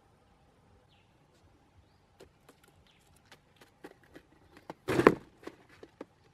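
Cardboard box trap's flap doors slamming shut in one sharp, loud thud about five seconds in, after a run of scattered light clicks and taps.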